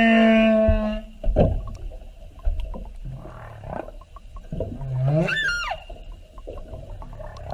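Animal calls: a long held pitched call that ends about a second in, then scattered shorter calls, and a high call that sweeps up and falls back about five seconds in.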